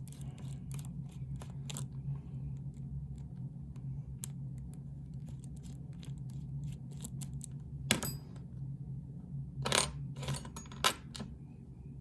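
Key and lock being handled: small metal clicks and taps as the key works the lock to lock it up, with a sharp metallic clink about eight seconds in that rings briefly, and a few more clicks soon after. A steady low hum runs underneath.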